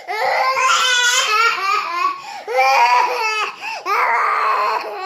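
A young child crying in three long, wavering wails.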